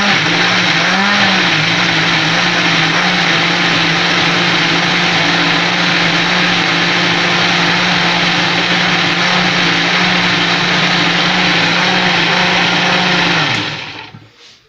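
Daytron countertop blender running at speed, blending chopped onion and sweet pepper into a paste. Its motor pitch wavers briefly at first, then holds steady. Near the end it is switched off and winds down.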